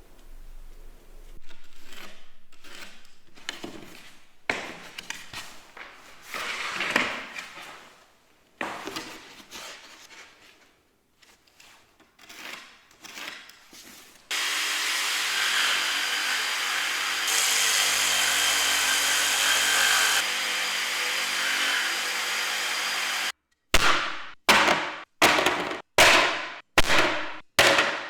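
Woodworking sounds: short rasping strokes on wood, then a power tool runs steadily for about nine seconds, louder in the middle. Near the end comes a run of sharp knocks about twice a second.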